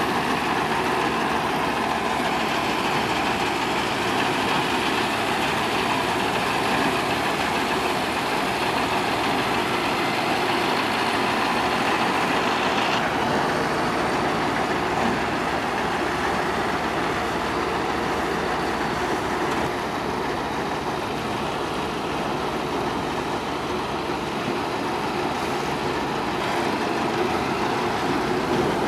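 Mahindra Arjun Novo combine harvester running close by as it cuts and threshes paddy: a steady mechanical noise of engine and threshing machinery under load.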